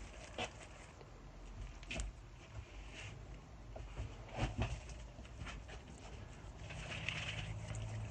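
Hands rolling air-dry clay into a ball: faint, irregular soft taps and rubbing. A low hum comes in near the end.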